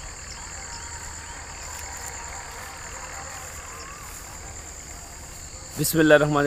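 Insect chorus in a field, a steady high-pitched trill that does not let up.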